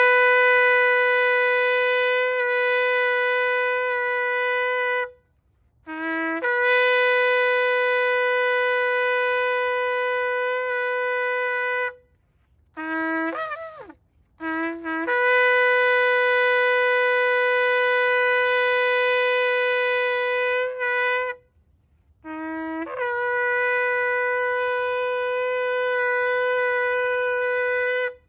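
A ram's-horn shofar blown in long held blasts, each opening on a brief low note before jumping up to a steady higher tone. Four long blasts, about five to seven seconds each, are separated by short pauses. A brief wavering sounding comes about halfway through.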